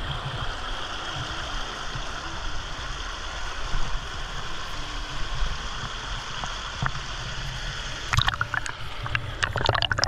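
Mountain river water rushing steadily, with a cluster of short sharp knocks in the last two seconds.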